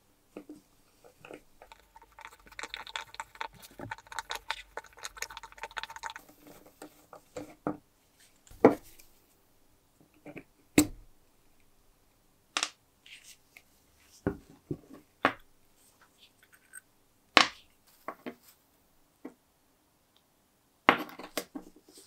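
Small-parts disassembly of a vintage brass Tommy-style lighter: a few seconds of gritty scraping and crackle as a screwdriver works at its small screw, then sharp metal clicks and taps a second or two apart as the parts are worked loose and handled.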